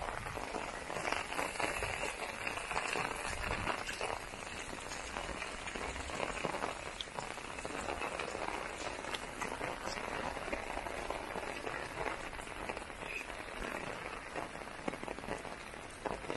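Heavy rain falling steadily, a dense patter of drops striking surfaces.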